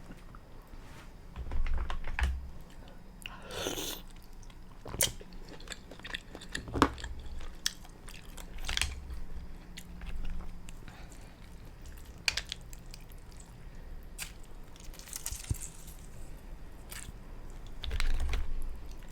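Close-miked chewing of a mussel meal, with scattered sharp clicks and a longer slurping hiss about four seconds in.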